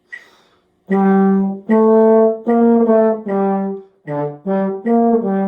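Valved brass instrument playing a slow beginner-band melody: about eight held notes, tongued with short breaks between them, starting about a second in.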